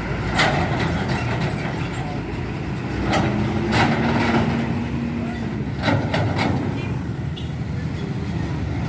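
Heavy road traffic, trucks and other large vehicles, running past steadily with a low engine rumble. A few short sharp sounds stand out above it, about half a second in and again around three to four and six seconds in.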